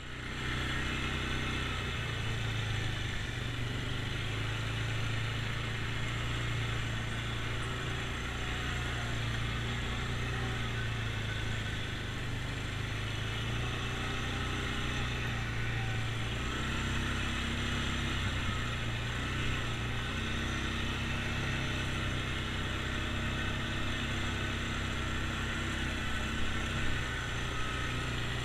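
ATV engine running steadily while the quad is ridden at low speed, its note shifting only slightly.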